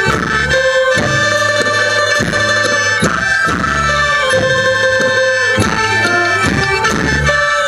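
Thai traditional folk music played live: a reedy melody over sustained drone notes, with regular drum beats.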